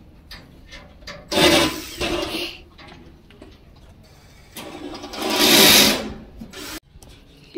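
Cordless drill-driver run in two bursts of roughly a second each, a few seconds apart, driving fixings into the barbecue's frame during assembly.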